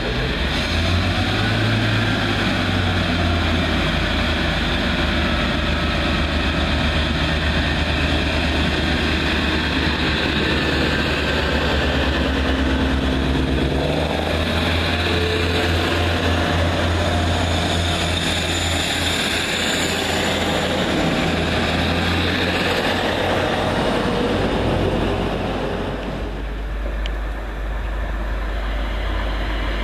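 Diesel multiple unit's underfloor diesel engines running with a low, steady drone. The engine sound shifts about halfway through and dies down a few seconds before the end.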